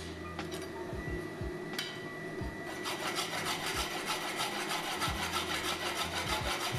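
A rasp drawn back and forth over a red-hot steel knife blank, hot-rasping the blade to straighten it. The rasping starts about three seconds in and goes on as a quick, even scraping rhythm.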